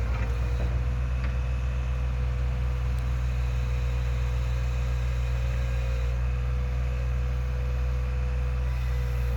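Komatsu PC30 mini excavator's diesel engine running steadily, a constant low drone with a thin steady whine above it.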